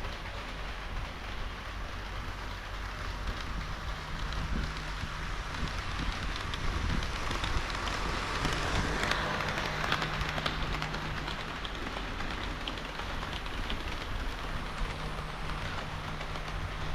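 HO-scale model train of KiHa 40 and KiHa 58 series diesel railcar models rolling along layout track: a rattly clatter of small metal wheels on rail with many fine clicks. It swells to its loudest about nine seconds in and then eases off.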